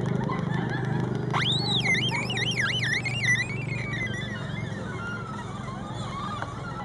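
Homemade electronic bird-call synthesizer built from recycled circuits, making artificial birdsong. About a second and a half in, a rising electronic sweep turns into quick warbling chirps that last a couple of seconds, then fainter chirps follow. A steady low hum runs underneath.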